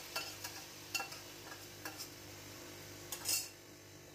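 A metal spoon scraping and clinking against a small steel pan as a fried onion and cumin tadka is scraped into a large steel pot of nihari. There is a short louder rush of hissing noise about three seconds in.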